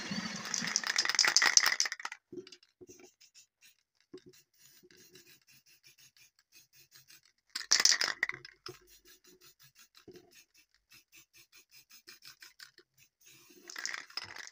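Drill-driven wheel grinding against a steel knife blade for about two seconds, then an aerosol spray can: a short hiss of spray about eight seconds in and another near the end, with faint rapid ticking between.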